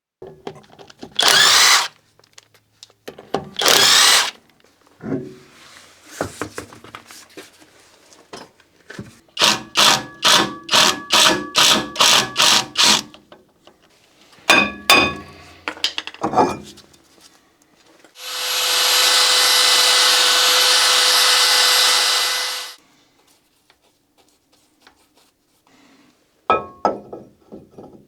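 Power drill/driver run in two short bursts that spin up, then about a dozen even knocks or clicks at about three a second, and later one steady run of about four and a half seconds, with scattered knocks of tools and parts between.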